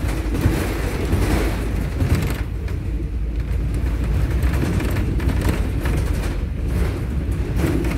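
MAZ-203 city bus heard from inside the passenger cabin while it drives: a steady low engine and road rumble.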